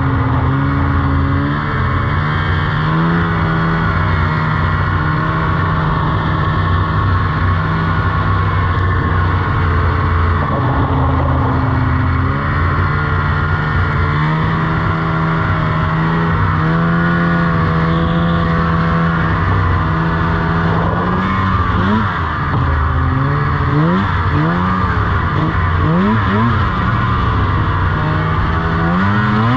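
2001 Polaris RMK 700 snowmobile's two-stroke twin engine, which has no power valves, running at steady high revs as the sled is ridden. About two-thirds of the way in the revs swing up and down several times.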